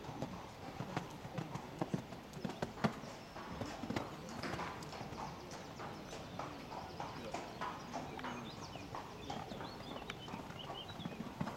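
A stallion's hooves cantering on a sand arena: an irregular run of dull hoofbeat thuds, loudest in the first few seconds.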